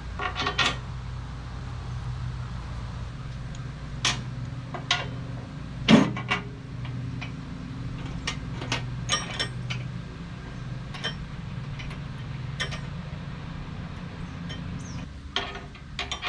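Irregular metallic clicks and knocks, as of tools and steel parts being handled, over a steady low hum. The loudest knock comes about six seconds in. The hum drops away near the end, just before a quick cluster of clicks.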